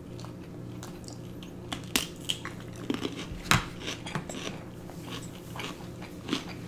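Close-miked chewing of a crunchy sushi roll: irregular crunches and wet mouth smacks, the loudest about two and three and a half seconds in, over a low steady hum.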